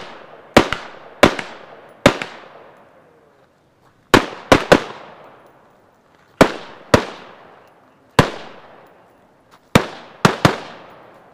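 Semi-automatic AR-style rifle firing about a dozen shots at an uneven pace, some in quick pairs, each crack followed by a short echo off the range berms.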